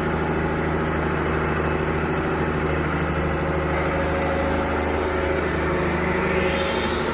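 Heavy diesel engine running steadily at idle, with a hiss rising in pitch near the end.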